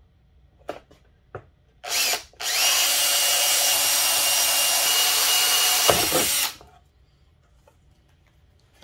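Cordless drill boring holes through a clear plastic mounting plate. After a couple of light clicks the drill gives a short spurt, then runs steadily for about four seconds and stops.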